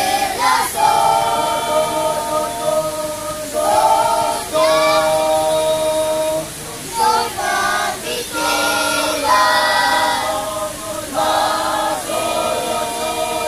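A choir of children and young people singing together with no instruments, in held notes and phrases a second or two long.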